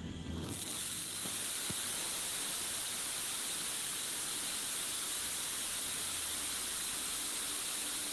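'Peacock Dance' ground firework burning with a steady, even hiss that rises about half a second in and holds.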